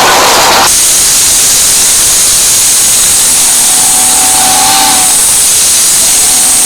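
Steam locomotive venting a loud, steady hiss of steam. A louder burst in the first split second cuts off abruptly.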